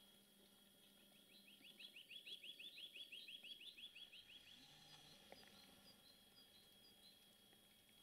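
Small songbirds singing faintly in snowy woods: a fast trill of short rising high notes starts about a second in and lasts about three seconds, over a softer high chirp repeated a couple of times a second.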